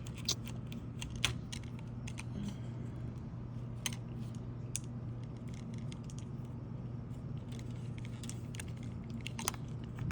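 A razor knife trimming excess screening along a screen-door frame: scattered light clicks, ticks and scrapes as the blade and screen material are worked, over a steady low hum.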